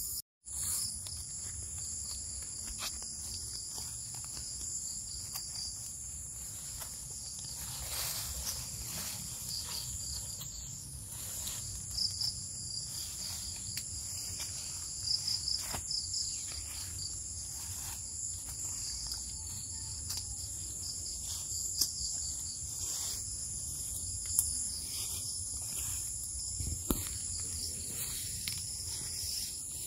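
A steady chorus of insects calling in several high pitches, with scattered brief rustles and soft steps through leafy bean vines.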